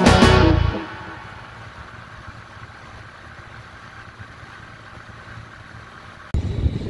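Guitar music ends within the first second. Then a 150 cc Yamaha single-cylinder motorcycle engine runs steadily at highway cruising speed, around 6,000 rpm, with road noise. Near the end it gives way abruptly to a louder sound.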